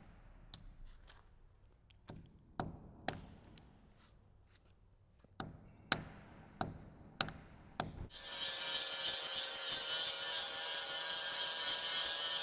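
About ten sharp knocks and clicks as the injection ports are knocked off the concrete. About eight seconds in, a grinder starts and runs steadily, with a whine of several pitches over a hiss, grinding down the epoxy surface seal over the crack.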